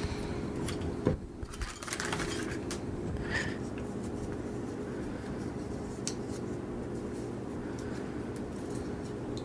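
Hands handling plastic barbed pipe fittings and a roll of Teflon tape: scattered light clicks and scrapes over a steady low hum.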